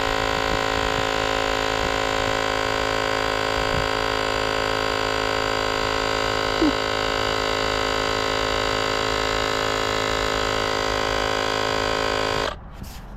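Portable electric tire inflator running with a steady buzzing hum while topping up a tire, then switching off abruptly near the end.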